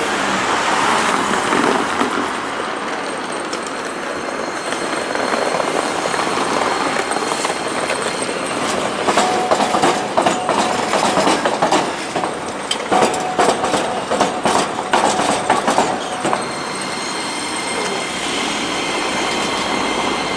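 Iyotetsu city streetcar's wheels clattering over the diamond crossing where the tram line crosses the railway at grade: a quick run of clacks in the middle stretch, between the tram's steady running noise as it approaches and pulls away.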